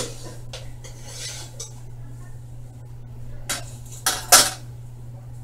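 Metal cupcake tins being handled: scattered clinks and clatters, with the loudest cluster about four seconds in.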